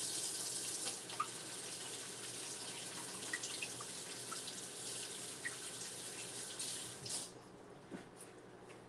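Kitchen sink faucet running as hands are washed under it after chopping jalapeño, with a few small splashes and clicks. The water shuts off about seven seconds in.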